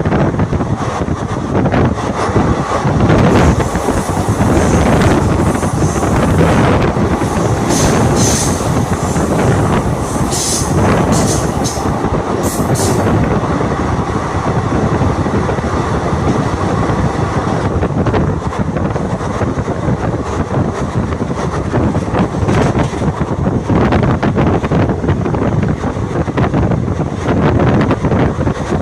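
Kota Intercity Express passenger train running along the track, a steady loud rumble and rattle of wheels on rails with rushing air. A run of short, sharp high-pitched squeaks comes through about a third of the way in.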